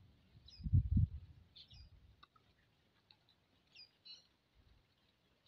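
Small birds chirping in short, high calls scattered throughout, with a brief low rumble about a second in.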